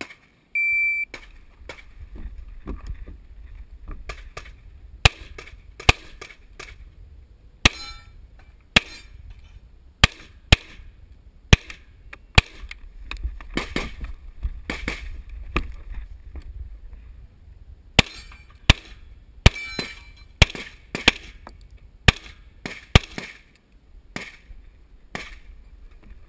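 Shot timer's start beep, one short high tone about a second in, then some twenty shots from a Tanfoglio pistol fired in singles and pairs with short pauses between as the shooter moves through the stage.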